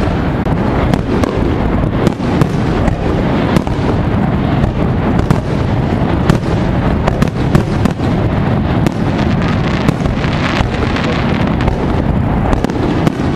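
Aerial fireworks display: shells bursting in quick succession, a dense run of sharp bangs and crackles over a continuous low rumble.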